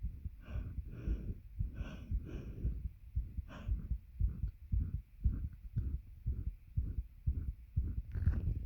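A person's heartbeat thudding in a steady rhythm, with heavy breaths laboured by a weight pressing on the chest. Several breaths come in the first three seconds and one more a little later, then only the heartbeat for several seconds until another breath near the end.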